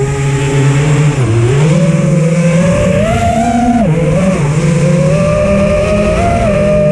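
Electric motor and propeller of an Emax-powered RC aircraft, heard from on board, whining loudly; its pitch drops and climbs again a couple of times with the throttle during aerobatics, then holds steady near the end.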